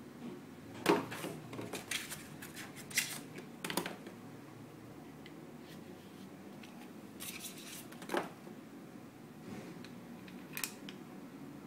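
Handling noise of unpacking: a cardboard sleeve and box rustling and scraping, with sharp clicks and knocks of a plastic-framed airsoft gas blowback pistol (WE M&P) being handled. The noises come in scattered clusters, the loudest a sharp click about a second in, with a quieter stretch in the middle.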